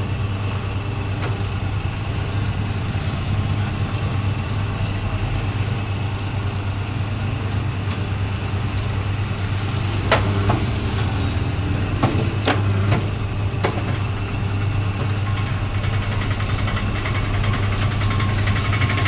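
Double-die paper plate making machine running with a steady low hum, with a few sharp clicks and knocks around the middle as the dies press and the plates are handled.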